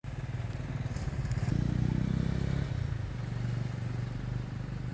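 An engine idling steadily, with a brief swell that rises a little in pitch about one and a half seconds in before it settles back to idle.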